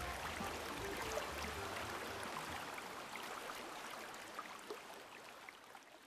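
Riverside ambience: a steady hiss of moving water and air that slowly fades out, with a low hum in the first couple of seconds.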